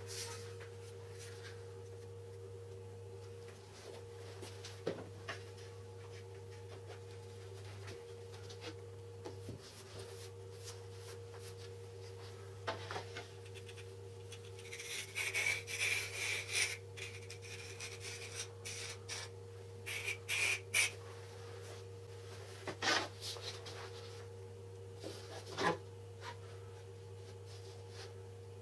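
Laminate flooring boards being slid and set down on a wooden workbench, with scattered light knocks. About halfway through comes a few seconds of short noisy bursts as glue is squeezed from a bottle onto a board. A steady low hum runs underneath.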